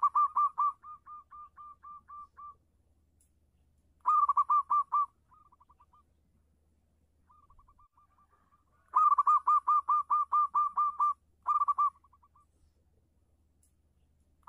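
Zebra dove (perkutut) singing: bursts of rapid, clipped cooing notes at about six a second. Each burst opens loud and trails off into softer notes. Loud bursts come at the start, about four seconds in and about nine seconds in.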